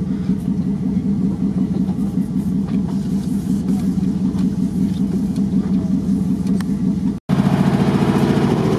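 Off-road vehicle engine running steadily at low revs with an even throb; it cuts out for an instant about seven seconds in and comes back louder.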